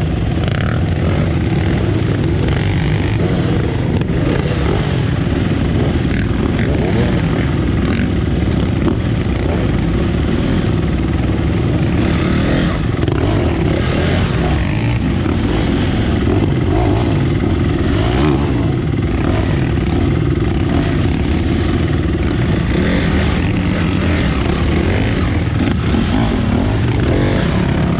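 Dirt bike engine running while riding along a trail, at a fairly steady level with no big revs.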